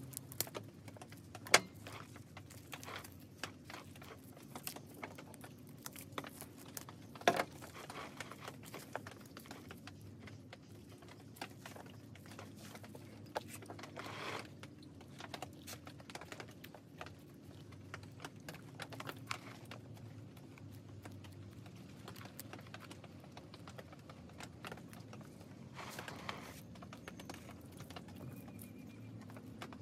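Scattered small clicks, taps and soft rustling of soil and roots being worked by hand and with a small pick and scissors on a Premna bonsai's root ball. Two sharper clicks stand out, about one and a half and seven seconds in.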